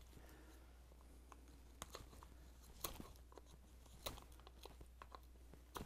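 Carving knife shaving a wooden spoon handle in short pulling cuts: faint, scattered crisp crunches and ticks, about one a second, over a low steady hum.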